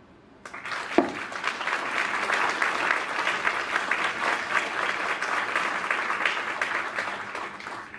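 Audience applause, many hands clapping, starting about half a second in and dying away near the end. A single sharp thump about a second in.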